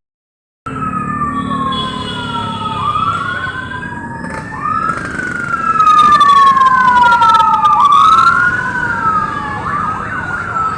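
Sirens wailing, two or more overlapping, each tone sliding slowly down and then jumping back up, loudest in the middle. It starts just under a second in, after a short dead gap.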